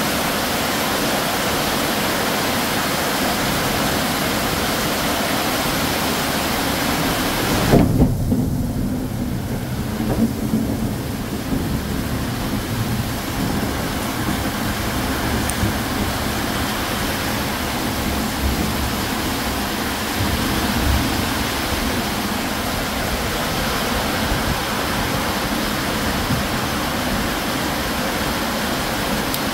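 Heavy tropical downpour hissing steadily. About eight seconds in a thunderclap breaks in and rumbles low for a few seconds, and the rain sounds duller for a short while after it.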